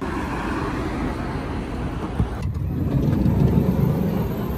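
Steady road-traffic noise with a single sharp knock about two seconds in.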